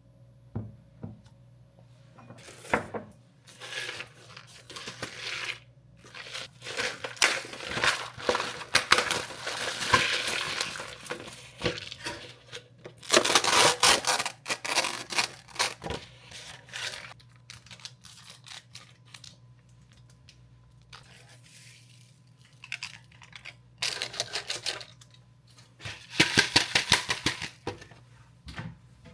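Packaging being torn open and crinkled by hand, in irregular bursts of rustling and crackling with quieter gaps, over a faint low steady hum.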